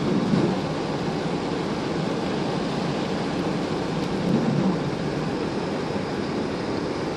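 Steady rain, a dense even hiss with a deeper rumble underneath that swells briefly near the start and again about four seconds in.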